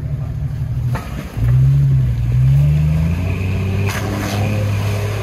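Lifted Jeep Cherokee XJ's engine working under load as it crawls through slush into a water-filled hole; after a brief dip about a second in, it revs, the note rising and falling and running louder for a couple of seconds before settling back to a steady rumble.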